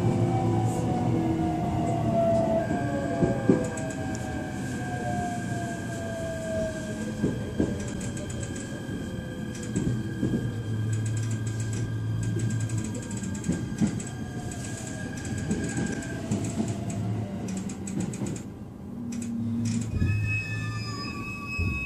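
E129 series electric multiple unit heard from on board, slowing down: the traction motor whine falls in pitch over the first several seconds, over the steady rumble and knocks of the running gear. The running sound eases and dips near the end, as when the train draws to a stop at a station.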